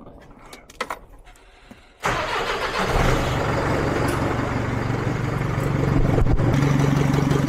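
A few light knocks, then about two seconds in the DAF LF truck's diesel engine is cranked by the starter. It catches within about a second and settles into a steady idle. It is being started with the air intake pipe off for a boost-circuit pressure check.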